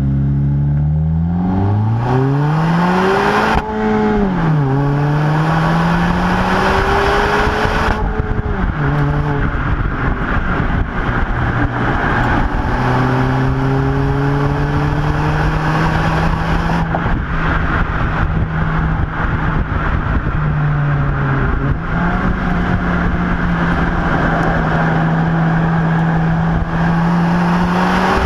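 2022 Honda Civic Si's 1.5-litre turbocharged four-cylinder (L15B7) being driven hard. The engine note climbs quickly and drops sharply at gear changes about four and nine seconds in, then runs at fairly steady revs with a brief dip and recovery near the end, over steady road noise.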